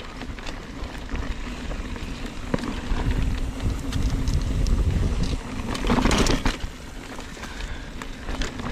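Mountain bike being ridden along a dirt trail: steady tyre rumble and wind on the ride camera's microphone, with a brief louder rush of rattling noise about six seconds in.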